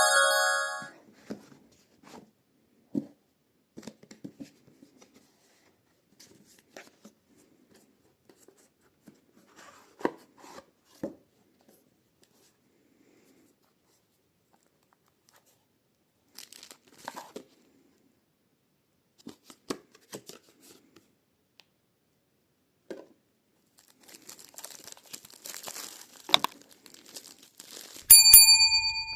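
A watch box and its packaging being opened by hand: scattered taps and rustles, tearing, and a stretch of crinkling plastic wrap near the end. A short bright chime sounds just before the end.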